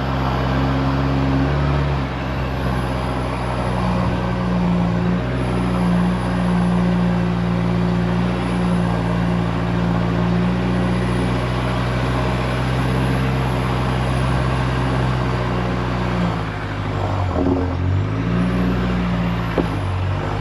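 Heavy four-wheel-drive vehicle's engine running as it drives, a steady drone that drops in pitch about 17 seconds in and then climbs again.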